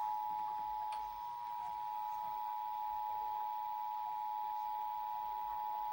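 Emergency Alert System attention signal: two steady tones just under 1 kHz, 853 and 960 Hz, sounding together, with no other sound over them.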